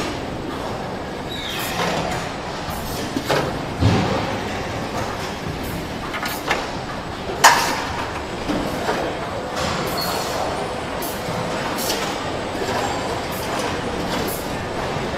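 Car assembly plant floor noise: a steady background of machinery with a few sharp clanks and knocks.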